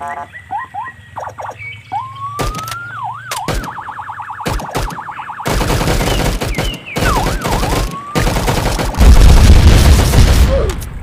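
Added sound effects: warbling, siren-like tones and rising whistles, then a rapid run of machine-gun fire that thickens into a dense barrage, and a loud explosion about nine seconds in.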